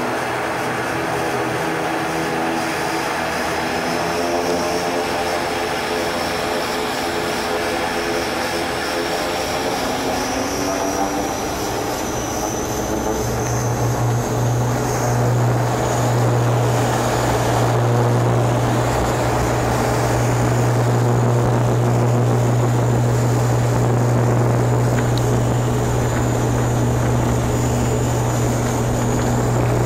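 An ATR 42-300's Pratt & Whitney PW120 turboprops heard from inside the cabin as power comes up for the takeoff roll. A mix of engine tones sits under a high whine that slowly rises in pitch. About halfway through, a strong steady low drone sets in and the whole sound grows louder.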